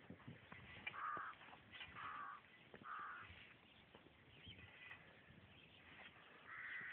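A bird calling faintly: three short, harsh calls about a second apart, then one more near the end.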